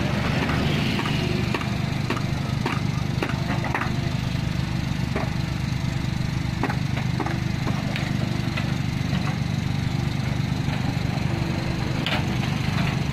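Komatsu PC45 mini excavator's diesel engine running steadily while digging, with frequent short knocks and clanks from the bucket and rocks as it scoops and dumps clay.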